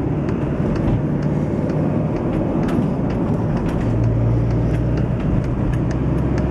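Car engine and road noise heard from inside the cabin while driving, a steady low rumble, with faint ticks about twice a second.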